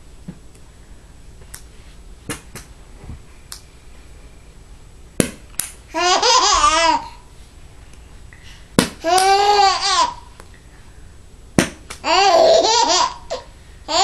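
Baby laughing in three bursts of about a second each, around six, nine and twelve seconds in, with a fourth starting at the very end. A sharp click comes just before each burst, and a few fainter clicks sound in the quiet first few seconds.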